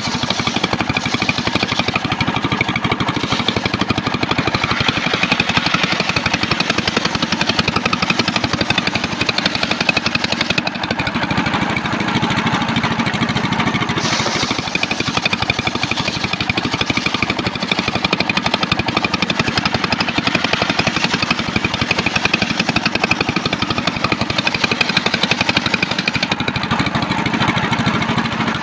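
A homemade table-mounted circular saw ripping an old trembesi (rain tree) log lengthwise: the blade runs steadily through the wood with a constant whine, and the cut sounds sharper and brighter from about halfway through.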